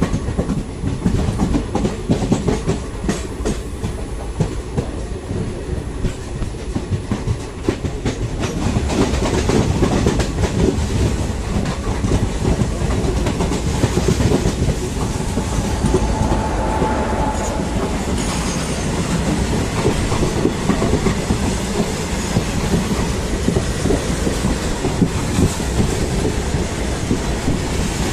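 Indian Railways passenger train running along the track: a steady rumble of the coaches with the clickety-clack of wheels over rail joints, growing louder about ten seconds in.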